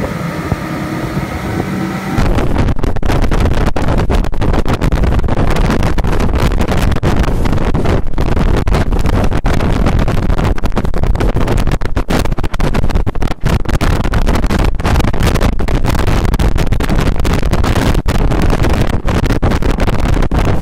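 Twin Mercury Verado 350 hp outboards running at speed, a steady engine drone over the rushing wake. About two seconds in, this gives way to loud, gusty wind buffeting on the microphone as the RIB runs fast, and the engines are buried beneath it.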